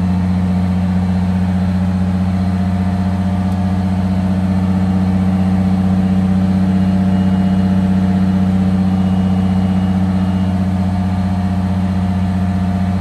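An old bus's engine running steadily at idle, warming up toward operating temperature, with a slight swell in loudness about halfway through.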